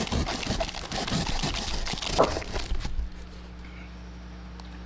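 Packaging being handled and torn open, a dense run of crinkling and rustling for about three seconds, then stopping, leaving a low steady hum.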